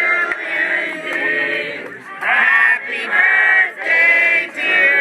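A roomful of people singing together, men's and women's voices in unison, in held phrases with short breaks between them.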